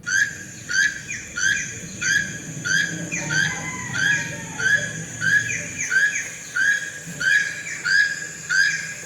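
Toucan calling: a short, harsh note repeated steadily about three times a second.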